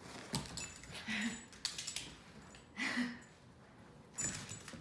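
A dog jumping down from a couch and moving on a hardwood floor: knocks and clicks of paws and claws, with the metal collar tag jingling. Two short vocal sounds come about a second and about three seconds in.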